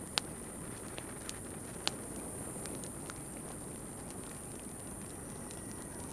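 Steady outdoor ambience with a constant high hiss, broken by a few sharp clicks or cracks, the two loudest about a fifth of a second and just under two seconds in.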